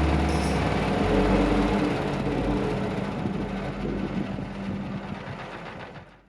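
Engine running steadily at a constant speed, fading out near the end.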